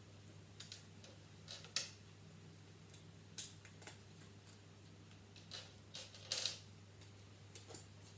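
Plastic Lego bricks clicking and clattering as pieces are handled and pressed into place: a dozen or so short, sharp clicks at irregular intervals, over a faint steady low hum.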